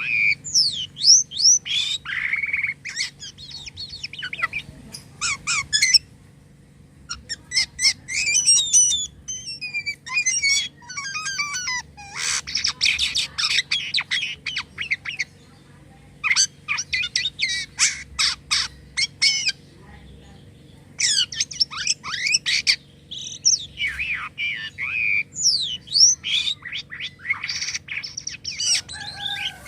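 Jalak kapas starling singing in long, varied bursts: sharp chirps, falling whistles, clicking notes and fast rattling trills, with short pauses between phrases. A faint steady hum lies underneath.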